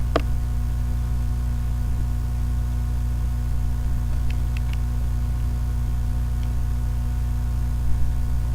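Steady electrical mains hum with a faint hiss, and a sharp click at the start and a couple of faint ticks about halfway through.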